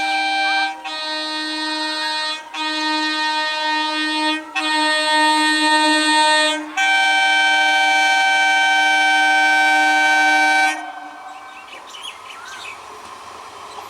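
WAP7 electric locomotive's horn honking in a series of blasts of about two seconds each, then one long blast of about four seconds that cuts off about eleven seconds in. Birds chirp after it, over the building noise of the approaching train.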